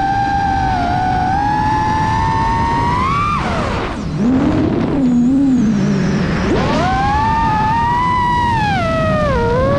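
FPV quadcopter's motors and propellers whining, the pitch rising and falling with the throttle. A little over three seconds in, the throttle is cut and the whine drops to a low wavering tone. Near seven seconds it climbs back up as the throttle is punched again.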